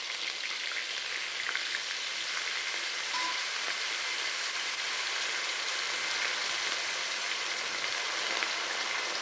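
Grated onion frying in hot oil in a kadhai: a steady, even sizzle.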